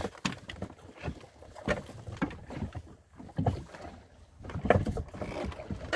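Scattered knocks and handling noises aboard a small fishing boat, over a low rumble, with a cluster of louder knocks near the end.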